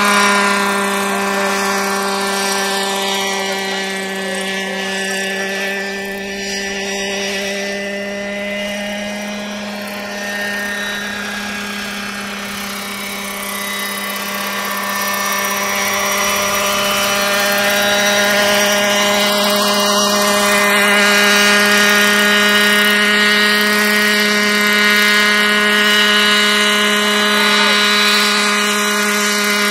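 Radio-controlled scale Robinson R22 model helicopter in flight. Its motor and rotors give a steady drone with a row of higher overtones at constant pitch. The loudness dips a little about a third of the way through and swells again in the second half.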